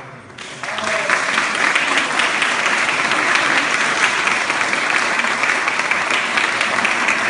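An audience breaks into applause about half a second in, and the clapping quickly builds to a steady, dense level.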